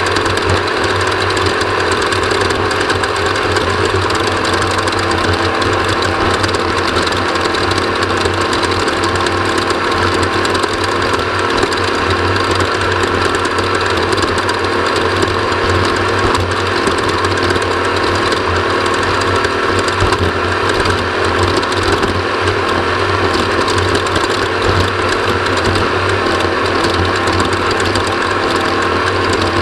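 Off-road race vehicle's engine running loudly and steadily, with a continuous mechanical clatter and rattle.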